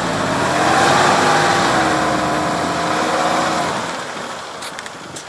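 Nissan Patrol engine revving as the SUV drives up out of slushy snow ruts, rising in pitch in the first second, holding steady, then fading away after about three and a half seconds.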